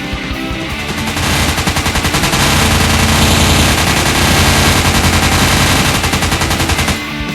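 Machine-gun sound effect: a long, loud, rapid burst of automatic gunfire starting about a second in and cutting off just before the end.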